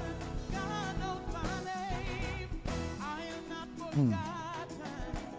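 Church band playing a gospel-style arrangement: wavering sustained melody lines over bass and drums, with a sliding drop in pitch in the low end about four seconds in, the loudest moment.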